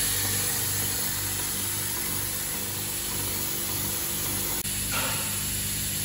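Steady low hum of factory machinery from the screw assembly machine, with a momentary break about four and a half seconds in.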